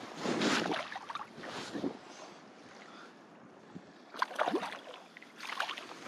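Shallow water splashing and sloshing in four short, irregular bursts, as someone wades through it.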